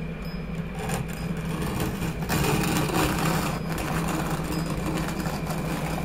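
Steel trowel scraping thin-set mortar across the back of a floor tile, a rough scraping noise loudest from about two to three and a half seconds in, over a steady low hum.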